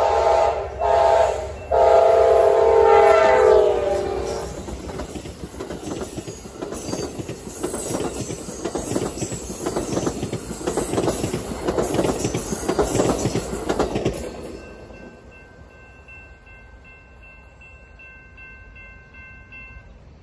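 Amtrak passenger train passing close by. The locomotive's air horn sounds a chord with two short breaks and then drops in pitch as it goes past. The double-deck Superliner cars follow, rumbling and clacking over the rails, until the train's sound falls away about fourteen seconds in, leaving faint evenly repeated high beeps.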